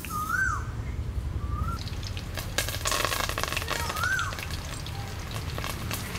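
Hot cooking oil crackling and sizzling in a burst about three seconds in, as green chillies go into it. A bird whistles a short rising-and-falling note about every two seconds throughout.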